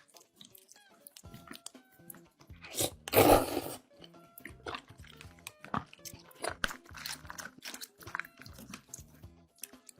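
Close-miked mukbang eating: one loud crunchy bite a little after three seconds in, then repeated smaller crunches and chewing, over quiet background music.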